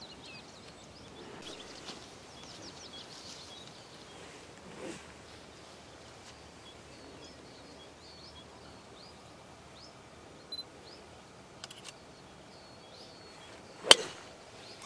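A golf driver striking a teed ball: one sharp crack about a second before the end. Birds chirp faintly in the background.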